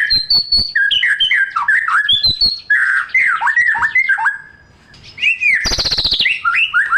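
White-rumped shama (murai batu) singing a loud, varied song of quick whistled notes, sliding up and down, in repeated phrases. After a short lull it gives a harsh, fast rattle about six seconds in, then whistles again.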